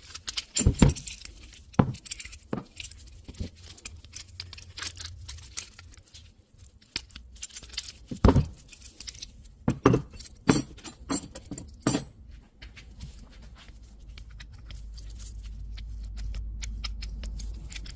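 Irregular metallic clacks and clinks of .50 BMG cartridges and M9 steel links being worked in an M12 hand linker/delinker. A low rumble builds in the last few seconds.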